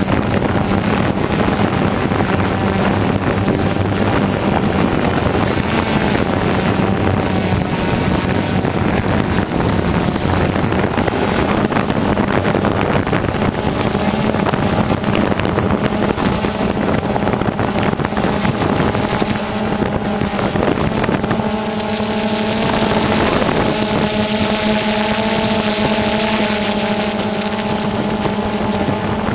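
DJI Phantom quadcopter's motors and propellers running steadily close to the onboard camera, a constant hum with several whining tones above it, over some wind noise. About twenty-two seconds in, the higher tones settle and grow clearer.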